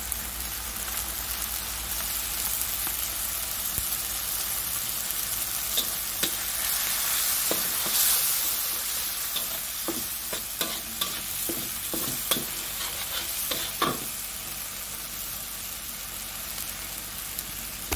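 Kurma spice paste with lemongrass sizzling steadily in hot oil in a wok. A slotted metal turner scrapes and clicks against the wok as it is stirred, most of the strokes falling in the middle of the stretch.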